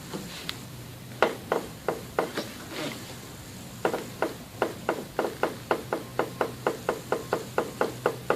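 Newly installed KYB strut assemblies on a 2004 Cadillac DeVille clicking with each slight compression, the clicks carried up through the strut towers. A few scattered clicks come first, then from about four seconds in a steady run of about three clicks a second.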